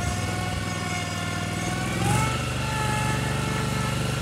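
Cub Cadet lawn tractor's engine running as it drives, with a thin whine over the engine note. About halfway through the engine note rises a little and holds there.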